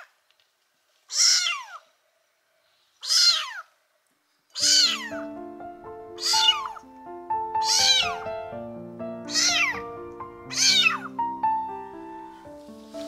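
Tiny tabby kitten meowing over and over: seven loud, high meows that fall in pitch, each about half a second long and roughly a second and a half apart. Background music with held notes comes in about four and a half seconds in.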